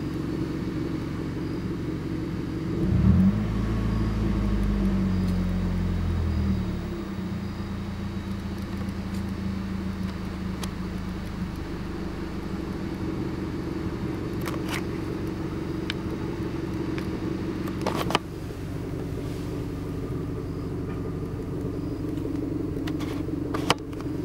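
Mazdaspeed 3's turbocharged 2.3-litre four-cylinder idling roughly: about three seconds in the engine speed jumps up, then sags back over the next few seconds before settling. A few sharp clicks come later. The owner fears the rough idle is lasting damage from diesel-contaminated fuel, despite a fuel system flush and new spark plugs.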